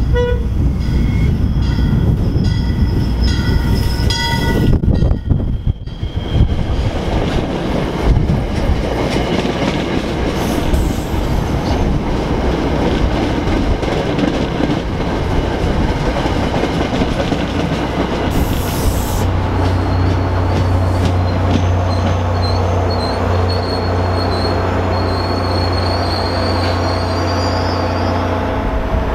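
MBTA commuter rail train arriving at a station. The cab car's horn sounds for the first few seconds. Then the coaches run close past with steady wheel-on-rail noise and clatter, and from about two-thirds of the way in a high wavering squeal from the braking wheels sits over the low, steady hum of the pushing diesel locomotive.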